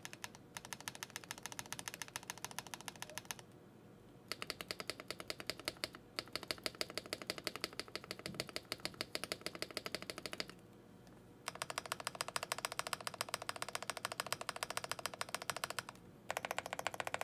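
Lubed, holee-modded KBD Fans screw-in keyboard stabilizers being pressed rapidly and repeatedly in a rattle test. There are four quick runs of clacks, several a second, with short pauses between. The builder hears no rattle in them.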